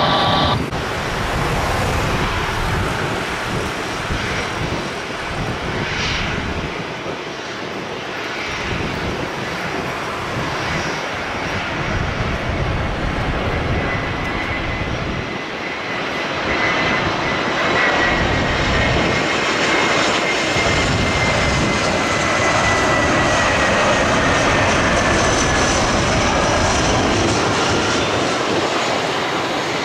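Jet airliner engines: a departing jet climbing away, then an Airbus A320-family jet on final approach, its engine noise growing louder as it nears and touches down. A thin high engine whine slides slowly down in pitch through the second half.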